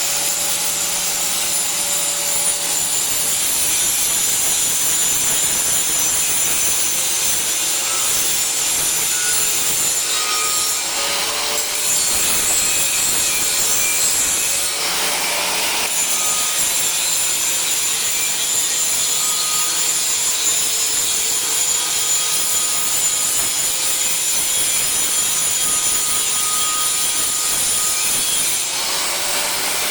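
Angle grinder cutting and grinding steel: a continuous harsh grinding noise over the motor's steady whine, whose pitch shifts slightly a few times as the pressure on the disc changes.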